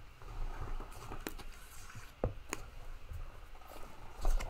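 Handling sounds of a hardcover book being picked up and opened: a few light clicks and taps over a faint rustle.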